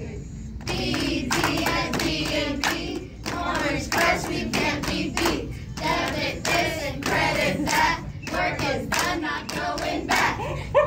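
A small group of adults chanting a team cheer in unison, with hand claps in a steady rhythm.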